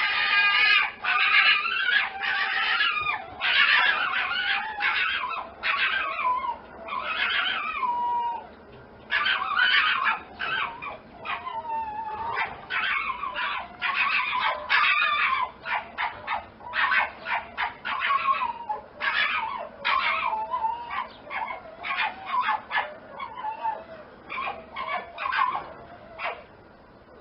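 Canine yipping and whining: many short, high-pitched calls in quick, crowded runs, several bending up and down in pitch, with a brief lull about eight seconds in.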